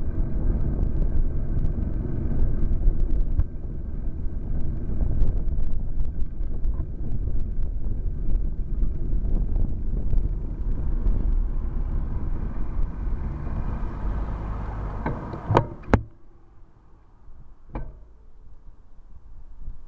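Low wind and traffic rumble while riding a bicycle through city streets. About sixteen seconds in, two sharp knocks, after which it goes much quieter, with one more knock near the end.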